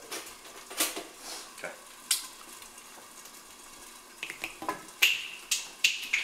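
Kitchen counter work: sharp clicks and clatters of dishes and utensils, a few with a brief ringing clink, in bunches at the start and again near the end, over a faint steady sizzle from a pan.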